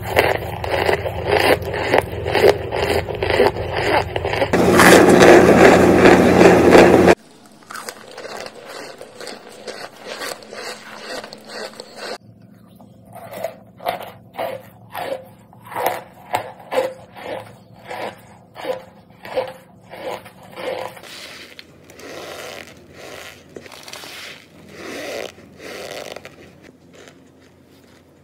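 Close-miked eating of a white chalky substance: bites and chews crunching and crackling, loudest for a couple of seconds about five seconds in and cutting off abruptly. After a quieter stretch, the crunches come evenly, about one every half second.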